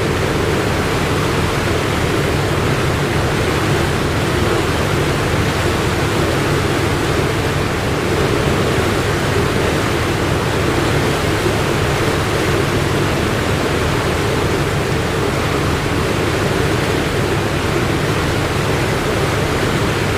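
Ship under way: a steady low engine hum beneath a loud, even rushing of water and wind.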